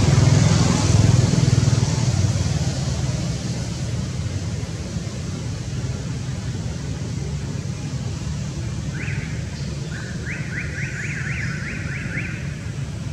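A steady low rumble, loudest in the first two seconds and then easing off. Near the end comes a run of quick rising chirps, about four a second, lasting a couple of seconds.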